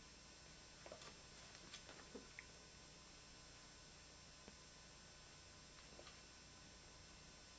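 Near silence with a steady electrical hum. A few faint soft clicks and rustles come about one to two seconds in and again near six seconds, from rabbit kits shifting as they nurse against their mother on a towel.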